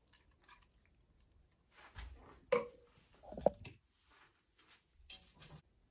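A metal spoon scraping and knocking on a ceramic plate while thick minced-meat and vegetable sauce is spread, with soft wet squishing of the sauce. One sharper clink rings briefly about halfway through.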